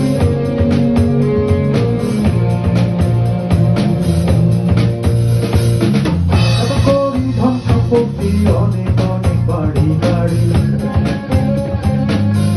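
Rock band playing an instrumental passage with no singing: a drum kit with snare and bass drum hits drives a steady beat under bass and held guitar or keyboard notes.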